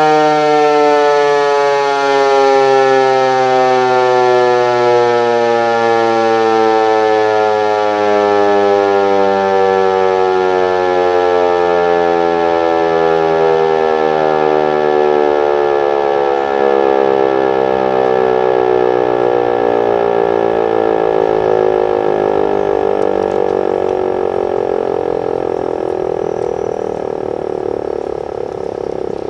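American Signal Corporation Tempest T-121 omnidirectional mechanical warning siren winding down: a single tone sliding steadily lower in pitch, growing slightly quieter near the end.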